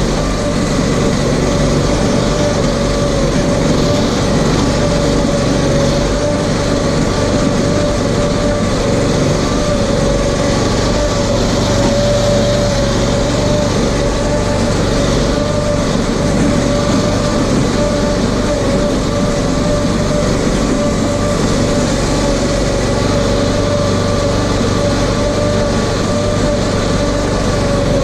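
Engine of an RS1000 off-road vehicle running steadily under way, its note holding at one pitch, over general driving noise.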